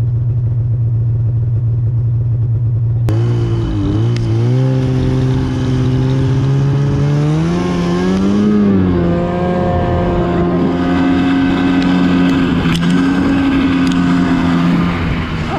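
Snowmobile engine idling steadily, then, after a sudden change about three seconds in, running under throttle. Its pitch wavers and climbs for several seconds, falls back, then holds steady as the sled rides across snow.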